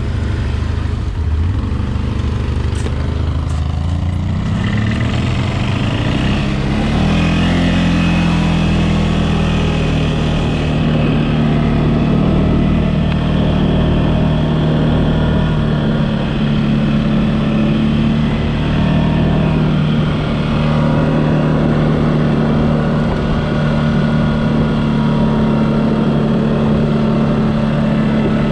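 A CFMOTO off-road vehicle's engine under way. It climbs in pitch a few seconds in as it speeds up, then runs at a steady speed.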